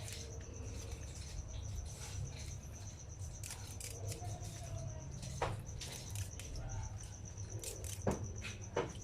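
Moringa (malunggay) leaves being stripped from their stems by hand: soft rustling with a few sharp snaps, the loudest near the end. Under it runs a steady low hum and a continuous high-pitched pulsing tone.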